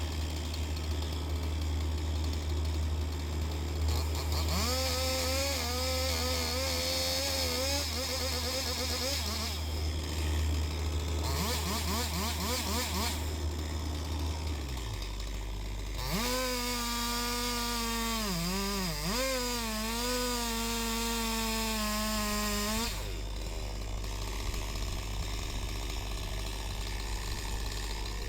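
John Deere 60G excavator's diesel engine running steadily, its drone shifting in pitch about halfway through. Over it, three stretches of a whine that wavers up and down in pitch as the machine works.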